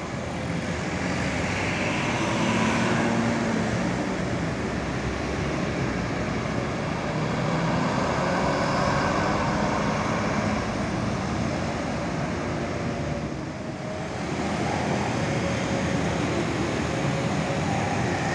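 Road traffic: buses, cars and motorbikes passing with engines running and tyres on the road, a steady mix with a brief lull about 13 seconds in.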